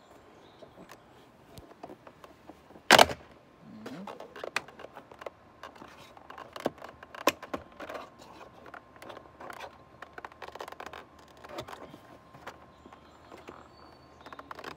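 Scattered clicks, scrapes and knocks of hands working a trim piece out of a BMW 3 Series exterior door handle, with one loud knock about three seconds in.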